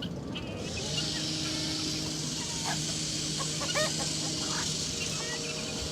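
Domestic chickens clucking in a coop, with short scattered calls. Under them run a steady hiss and a low mechanical hum.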